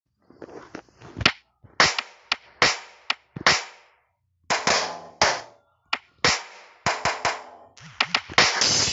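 Sampled drum and cymbal hits from the Real Drum phone app, struck one at a time at an uneven pace, several ringing briefly. Near the end a cymbal hit rings on.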